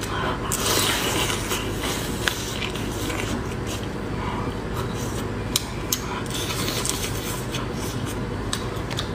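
Close-miked eating of a whole spicy sea shrimp: its shell cracking as it is bitten and pulled apart by fingers and teeth. There are crisp clicks throughout and a louder stretch of crackling about a second in.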